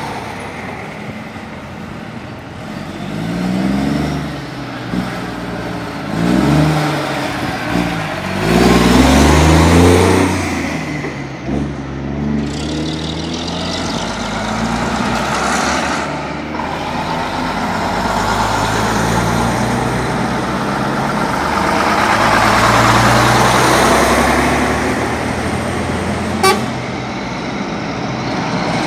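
Diesel engines of a convoy of trucks and a coach pulling away past one after another, their notes rising as they accelerate and then settling into a steadier drone. A single sharp click sounds near the end.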